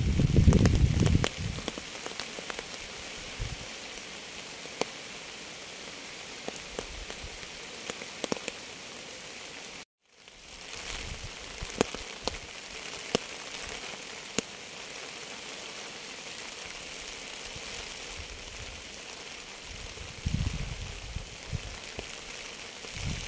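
Steady rain falling, a constant hiss with many single drops ticking sharply on a surface. A low rumbling noise swells near the start and again near the end, and the sound drops out completely for a moment about ten seconds in.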